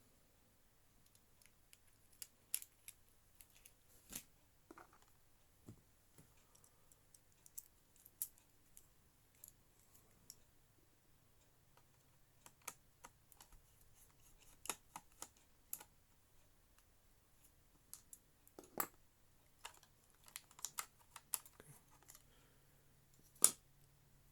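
Scattered small clicks and taps of a screwdriver and its bit on a laptop's plastic case as the bottom screws are worked out, one sharper click near the end.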